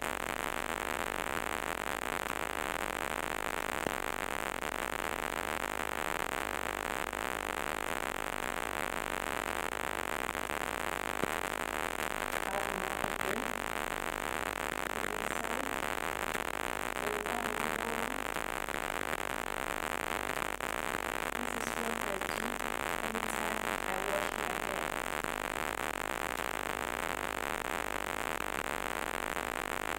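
Steady hiss of recording noise throughout, with faint, scattered pitched sounds about halfway through.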